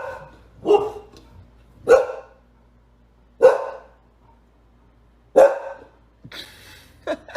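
A dog barking: single barks spaced about one and a half to two seconds apart, five in all, the last one weaker.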